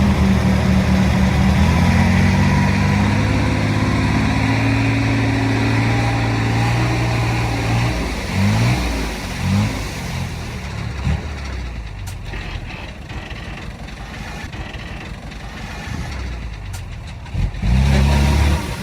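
Heavy-equipment diesel engine running loud with a steady pitch that steps up a little, then revving briefly up and down about eight seconds in before dropping to a quieter run, and coming back loud near the end.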